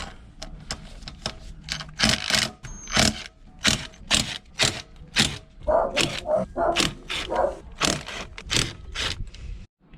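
A hand wrench clicking and knocking on the bolts of a scooter's engine side cover as they are cracked loose, with short sharp metallic knocks about twice a second.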